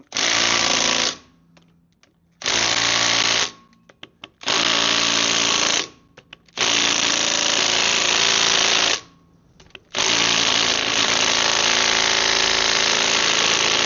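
Power impact wrench running in five bursts, the last and longest about ten seconds in, tightening bolts on a Land Rover Defender 90's wheel hub.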